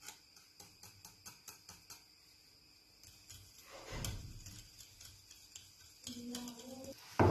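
Small wire whisk stirring a mayonnaise-and-yogurt dressing in a glass bowl, its wires ticking against the glass about four times a second, then a louder scraping stir about four seconds in. A sharp knock near the end.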